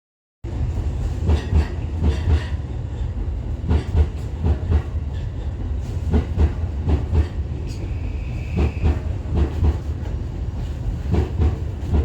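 Inside a moving electric commuter train: a steady low running rumble with the wheels clacking over rail joints in frequent, uneven knocks. A brief high steady tone sounds about eight seconds in.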